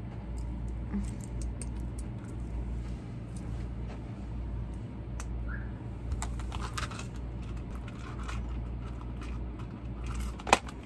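Small clicks and rattles of a metal link wristwatch band being handled and fastened, and of a clear plastic storage box, over a steady low hum; a sharp click near the end is the loudest sound.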